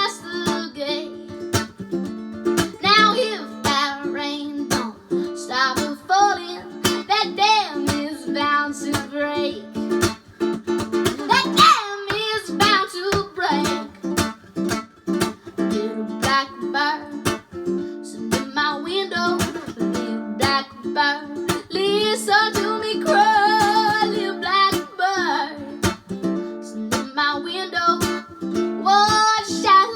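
A young girl singing with vibrato over a strummed string instrument, in a small room.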